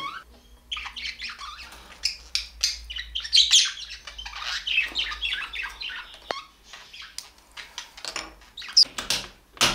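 Birds chirping in many quick, overlapping short calls, busiest from about three to five seconds in. A sharp click comes a little after six seconds and a louder knock near the end.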